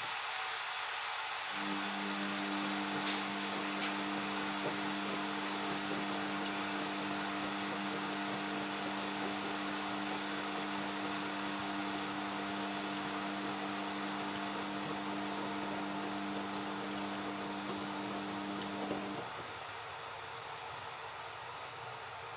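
Indesit washing machine running mid-cycle on a sport wash: a steady hiss, with a low hum that starts about a second and a half in and cuts off suddenly a few seconds before the end.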